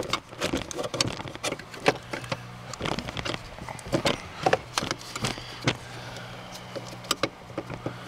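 Irregular clicks, taps and light knocks as a plastic brake light switch is handled and pushed onto the brake pedal push rod under a pickup's dashboard, with hands bumping the metal pedal bracket. A low hum runs underneath and drops out for a few seconds in the middle.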